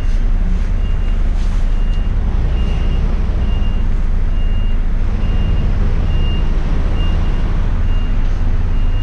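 A vehicle's reversing alarm beeping about once a second, a single high tone, over the steady low rumble of an idling truck diesel engine.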